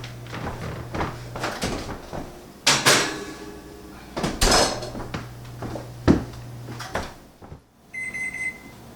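Kitchen clatter of knocks and clinks over a low steady hum. Near the end an electronic timer starts beeping at a high pitch in quick repeats, signalling that the 12-minute bake time is up.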